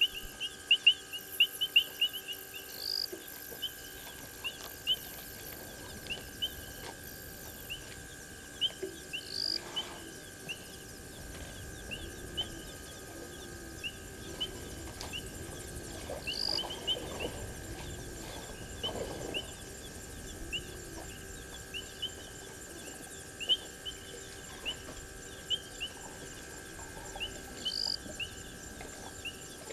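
Night chorus at a waterhole: short, high chirps repeating about twice a second, with a higher single call every several seconds.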